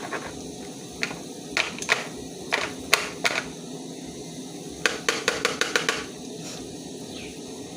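Dried ginger being pounded on a plate with a pot lid: sharp knocks of metal on crockery, a few scattered strikes, then a quick run of about eight blows about five seconds in.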